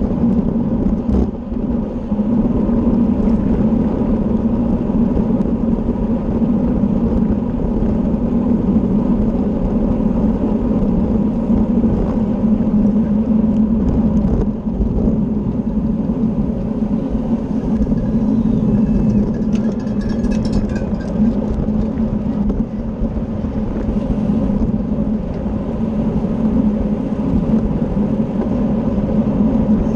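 Wind rushing over the microphone of a camera on a road racing bicycle at speed, with a steady low hum under it.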